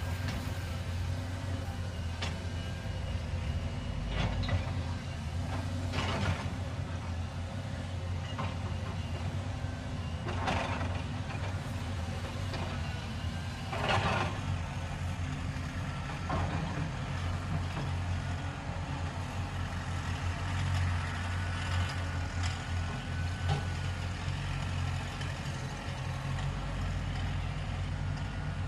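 Caterpillar excavator's diesel engine running steadily as a low hum while it digs, with a few short bursts of noise from the working arm and bucket now and then.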